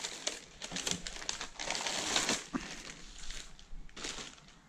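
Clear plastic bag crinkling and rustling as it is pulled off a small turbocharger by hand, in irregular bursts that die down near the end.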